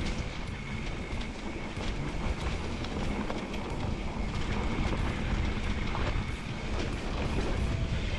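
Rockrider XC 500 S mountain bike riding down a rough dirt trail: a steady low rumble of tyres and wind, with a continuous clatter of the bike rattling over ruts and stones.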